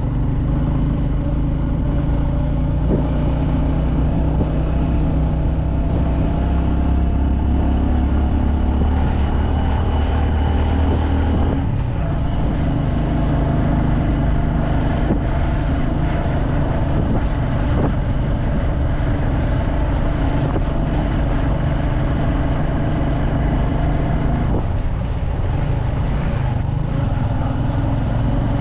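Motor vehicle engine running steadily with road noise. The engine note drops and changes about twelve seconds in.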